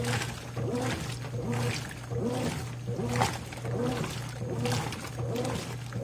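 Consul 13 kg top-load washing machine (CWE13AB) agitating a load of socks in soapy water. The agitator reverses about every 0.8 seconds, each stroke a swish of water with a short motor whine that bends in pitch, over a steady low hum.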